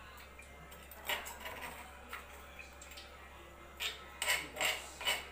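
Metal spoon clinking and scraping against a mortar as sambal is scooped around in it: scattered sharp clicks, coming closer together in the last second and a half.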